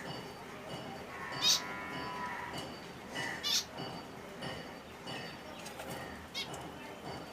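Finches calling: a handful of short, sharp chirps spaced through, with a longer nasal note about a second in.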